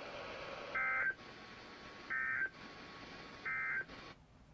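NOAA Weather Radio's SAME end-of-message data code: three short bursts of warbling digital data tones, about 1.4 s apart, over radio hiss. They mark the end of the Required Weekly Test broadcast. The hiss cuts off abruptly near the end.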